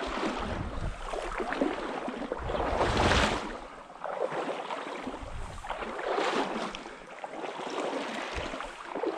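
Legs wading through shallow stream water, sloshing and splashing in uneven strides every second or two. A gust of wind hits the microphone about three seconds in.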